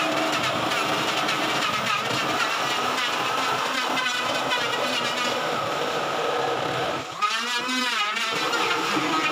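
Corded electric jigsaw running and cutting through a plywood sheet, its blade buzzing steadily as it strokes through the wood. About seven seconds in, the motor's pitch briefly sags and comes back for about a second before the cut carries on.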